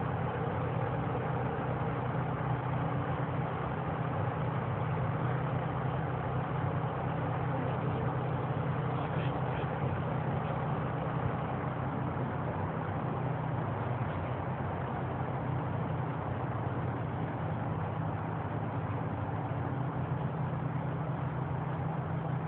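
Steady low engine hum, like an engine idling, over a constant even background noise that does not change.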